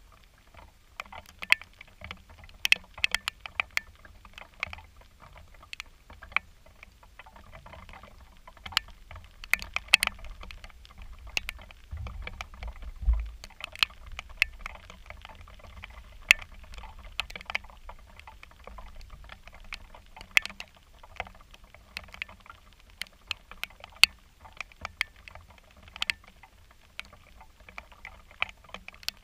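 Irregular sharp taps of raindrops hitting the camera and its microphone, some much louder than others, over light rain patter. A brief low rumble comes about halfway through.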